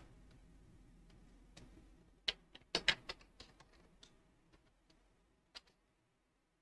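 Computer keyboard keystrokes: a short run of about half a dozen quick taps, then a couple of single clicks, with near silence between them.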